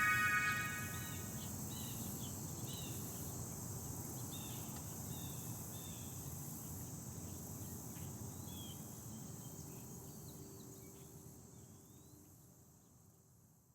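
Faint outdoor ambience: a steady hiss with small birds chirping now and then, fading out gradually to nothing near the end. The tail of a music track fades away in the first half-second.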